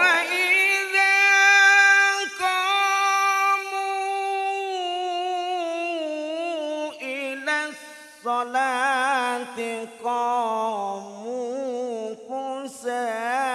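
A man reciting the Qur'an in the melodic tilawah style through a microphone and PA: one long, high held note for about four and a half seconds, then lower phrases with wavering, ornamented turns broken by short pauses.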